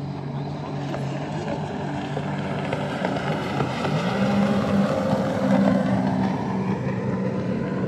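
Jet ski engine running at speed as it passes across the river, with its pitch rising about four seconds in and getting loudest around that point.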